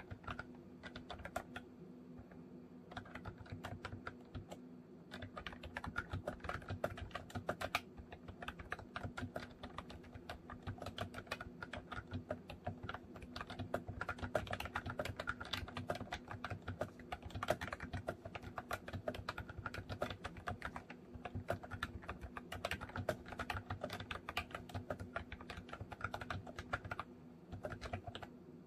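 Typing on a MOFii Retro Style Candy keyboard: quick, irregular key clicks and clacks running on, with a few brief pauses.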